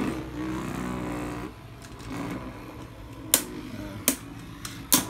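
Two Beyblade Burst spinning tops whirring in a plastic stadium just after launch: a steady hum for about the first second and a half, then quieter spinning with three sharp clicks as the tops knock together.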